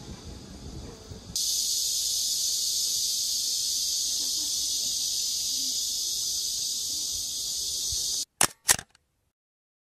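Loud, steady insect chorus, a dense high buzz that sets in suddenly about a second in and cuts off abruptly near the end. Two sharp clicks follow it.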